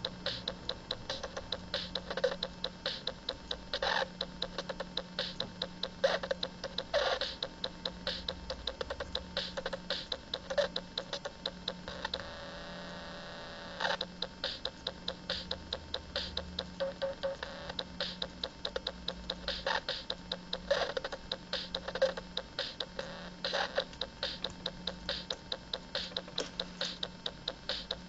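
Circuit-bent toy drum machine glitching out: a fast, irregular stream of electronic clicks and ticks with louder drum hits every second or two. About twelve seconds in, the clicks give way to a pitched electronic tone for about two seconds. A low pulsing hum runs underneath.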